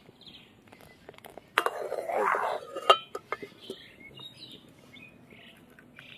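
Metal ladle scraping and clinking against an aluminium kadai of thickened milk, loudest about two seconds in and ending in a sharp clank near the halfway point. Birds chirp faintly through the second half.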